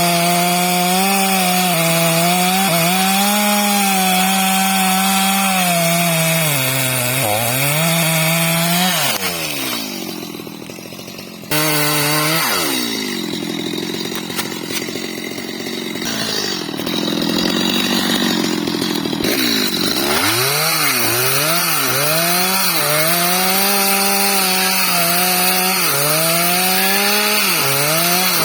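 Stihl MS250 two-stroke chainsaw running at high revs while cutting into a tree, its engine pitch sagging each time the chain bites into the wood and recovering as it frees. It eases off for a couple of seconds about ten seconds in, then comes back on throttle suddenly and carries on cutting with frequent dips in pitch.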